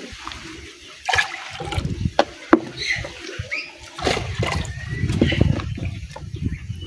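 Water splashing and sloshing in a container, with a few sharp knocks and clatters.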